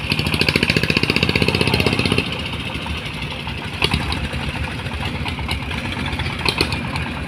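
An engine running with a fast, even pulse that eases off about two seconds in, leaving a steadier, lower running sound.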